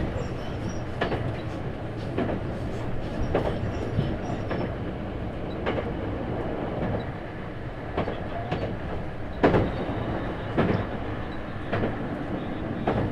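Running noise heard from inside a JR East 651-series electric train's motor car (MoHa 650, MT61 inner-fan traction motors) travelling at steady speed. A continuous low rumble is broken by wheel knocks over rail joints, about one every second.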